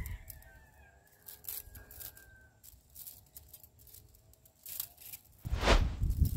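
Coiled wire cable being handled and flexed: faint clicks and scrapes of loose wire strands, with a louder rough rustling noise near the end.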